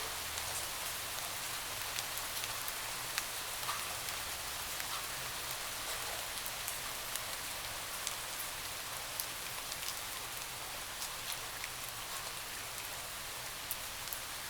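Steady rain on a window: an even hiss of falling rain with many scattered sharp taps of individual drops.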